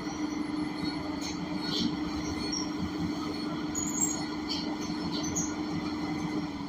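Inside a Gillig BRT Plus transit bus: its Cummins Westport L9N natural-gas engine and driveline give a steady, even hum over road noise, with a few faint rattles.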